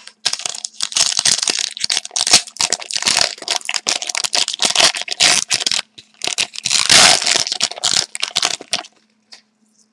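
A trading card pack's crinkly wrapper being torn open and crumpled by hand, a dense crackling rustle that stops about nine seconds in.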